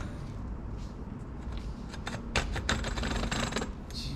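Bottom-bracket facing tool being turned in a bicycle frame's bottom-bracket shell: a run of sharp metallic clicks and scrapes about halfway through as the cutter shaves metal off the shell face.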